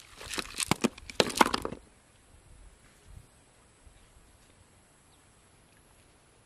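A green plastic mesh bag being handled at the pond's edge: a quick run of clattering knocks and rustling that lasts about two seconds, then stops.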